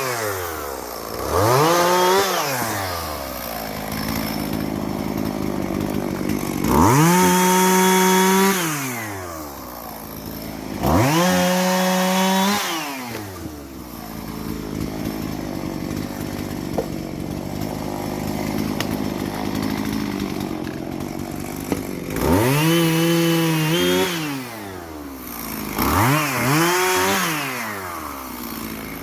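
Two-stroke chainsaw revved up to full throttle about five times, each burst held for one to two seconds before dropping back, with a longer stretch of lower steady running in the middle.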